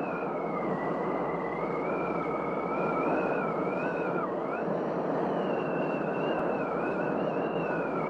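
Whale song over a steady rushing underwater-style noise: a long wavering high call breaks off about halfway, then a second call begins slightly higher.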